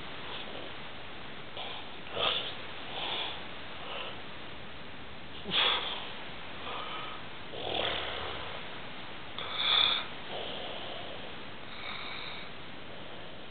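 A sleeping man snoring: a series of separate noisy snores at uneven intervals of about one to two seconds, with two louder ones, one about halfway through and one about ten seconds in.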